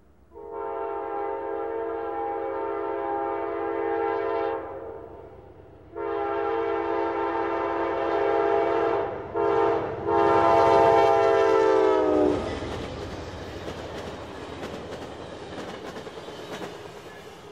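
Amtrak GE Genesis diesel locomotive's multi-chime air horn blowing the grade-crossing signal: long, long, short, long, with the pitch dropping at the end of the last blast as the locomotive passes. Then the passenger cars rumble and clatter by over the rails, fading away.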